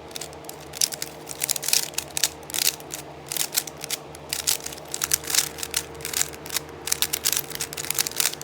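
A new Rubik's-brand 3x3 cube being turned quickly by hand: a fast, irregular run of plastic clicks and clacks as the layers turn.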